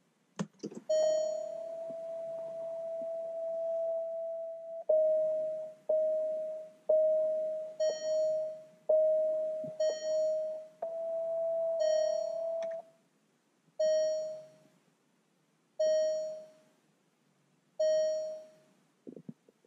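Alfa Romeo Giulia Quadrifoglio's instrument-cluster warning chime: a couple of clicks, then a held chime tone for about four seconds, then repeated chimes about once a second, slowing to one every two seconds near the end. It sounds with the brake-system fault warnings, the braking system having gone into failsafe mode.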